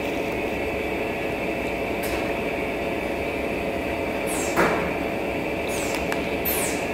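Steady droning hum in the room, with short crackles from a thin plastic water bottle as it is drunk from, just past halfway.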